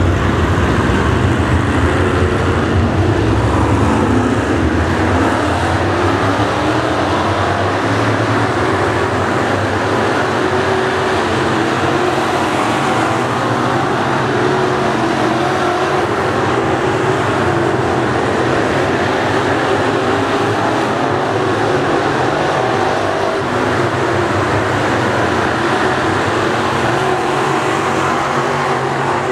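A field of dirt late model race cars with Chevrolet crate V8 engines running around the track together, heard as one loud, steady engine drone.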